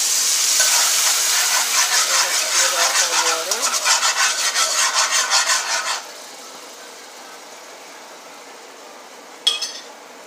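Liquid poured into hot pork fat and sofrito in a metal pan, hissing into a loud sizzle while a metal spoon stirs and scrapes the pan bottom. The loud sizzle cuts off suddenly about six seconds in, leaving a quieter steady sizzle, with a single sharp metal clink near the end.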